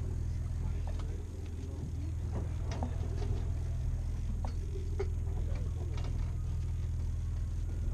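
Steady low hum of the fishing boat's engine, with scattered light clicks and knocks and faint distant voices.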